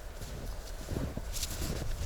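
Footsteps crunching through deep snow, several steps from about a second in, over a low rumble of wind on the microphone.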